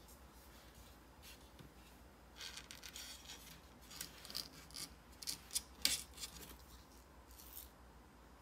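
Golden retriever puppy's claws scratching and scraping against a cabinet edge and laminate floor as it wriggles on its back: a run of short, scratchy rasps and clicks lasting about four seconds, loudest a little past the middle.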